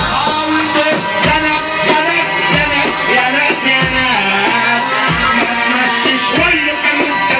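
Live Egyptian wedding band music: an instrumental melody with sliding, bending notes over a steady drum beat, with a jingling tambourine or shaker keeping time.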